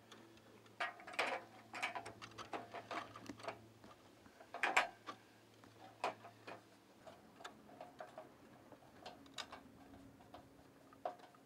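Irregular light metallic clicks and knocks as aluminium mounting rails are handled against roof brackets and fastened in place.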